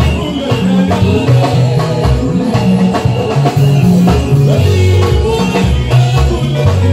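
A live worship band playing: women singing into microphones over electric bass, electric guitar and drums.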